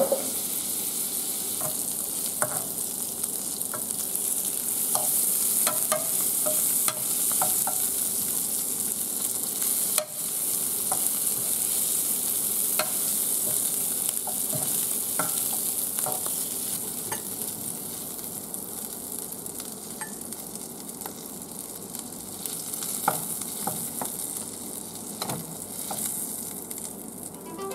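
Yabby tails frying in butter and garlic in a non-stick pan: a steady high sizzle, with light clicks and scrapes of a fork turning them against the pan. The sizzle eases a little in the second half.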